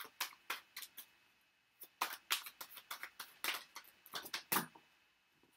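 A tarot deck being shuffled by hand: a run of quick, irregular snaps and slides of the cards, with a short pause about a second in.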